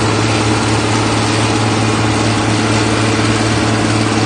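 Large John Deere farm tractor's diesel engine running steadily under load as it pulls a tile plow laying plastic drainage tile, a constant deep hum.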